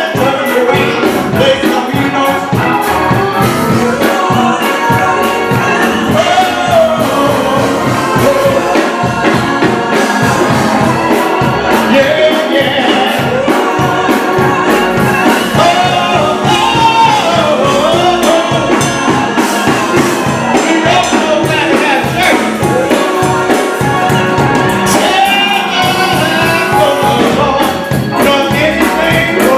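Gospel-style song: singing voices over a band with a steady beat.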